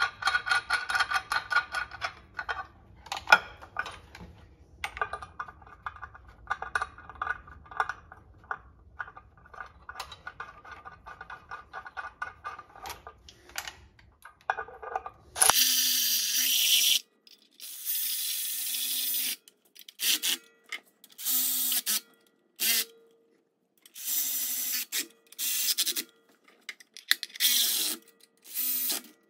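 Cordless electric ratchet driving M8 bolts into the EM57 motor's aluminium housing. First comes a long stretch of fast ratchet clicking. From about halfway there is a series of about ten short whirring motor runs, each one to two seconds long.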